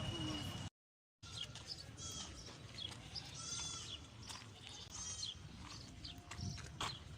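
Three short, buzzy animal calls about a second and a half apart, with light clicks and knocks between them; the sound cuts out briefly about a second in.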